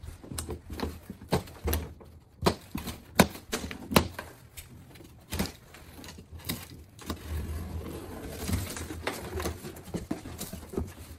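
Scissors cutting plastic packing straps on a large cardboard box, with irregular sharp clicks and knocks. From about seven seconds in, cardboard flaps scrape and rustle as the box is opened.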